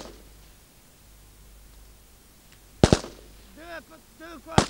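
Two single rifle shots, the first nearly three seconds in and the second near the end, with a voice between them.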